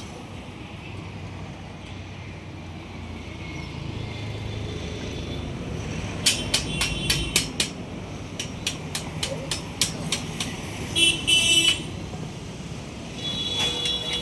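Steady road-traffic rumble, with a run of sharp taps, several a second, through the middle, and short vehicle horn toots near the end.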